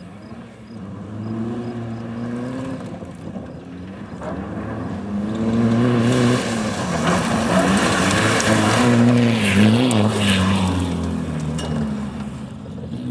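VW Golf II 1.9 TDI rally car's four-cylinder turbodiesel accelerating hard through the gears, its engine note rising and dropping at each shift and getting louder as it comes past. Its loudest stretch, about six to ten seconds in, comes with a hiss of loose gravel spraying from the tyres as the car slides by.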